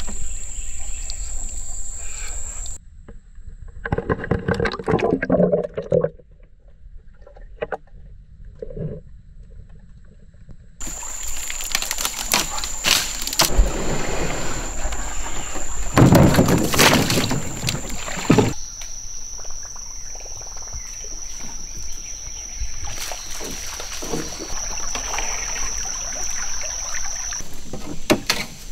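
A kayak being handled and paddled on a small creek: knocks against the hull and water sloshing, in several short clips cut together, with a few louder knocks about two thirds of the way through. A steady high-pitched drone runs under most of it.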